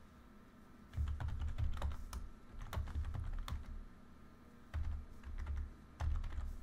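Typing on a computer keyboard: bursts of quick keystrokes starting about a second in, with short pauses between them.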